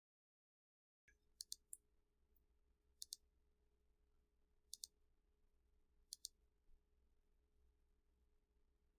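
Computer mouse clicks: about five short, sharp clicks a second or two apart, most heard as a quick double tick, over near silence.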